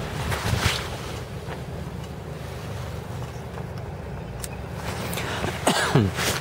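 Lazair ultralight's twin engines idling with a low steady drone as it taxis, with the airframe rattling. Near the end there is a loud clatter and a short falling whine.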